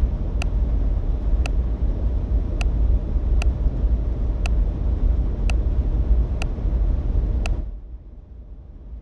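A steady low rumble with a light tick about once a second; both cut off suddenly near the end.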